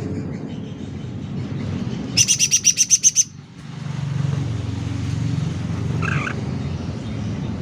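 Cucak ranting songbird calling: a loud, fast burst of about nine sharp high notes about two seconds in, lasting about a second, then a short fainter call near the end. A steady low rumble runs underneath.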